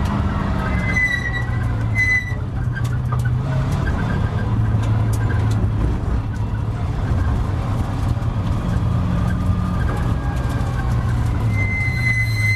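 Triumph TR7 race car's engine heard from inside the cockpit, running at low, steady revs as the car rolls slowly at about 20 to 30 mph. A high, steady beep sounds briefly twice about a second in and starts again near the end.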